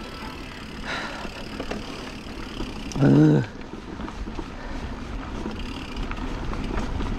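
Ride noise from an electric mountain bike on a dirt trail: tyres rolling and rattling with steady wind rush on the microphone, the low rumble growing stronger over the last second or so. About three seconds in, a rider gives a short vocal exclamation.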